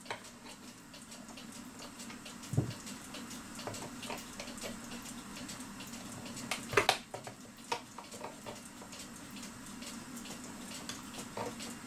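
A few scattered light clicks and knocks of a small metal tool against the wooden case of a cuckoo clock as its carved front is pried at to work loose the nails holding it. The sharpest click comes a little past the middle, over a steady low hum.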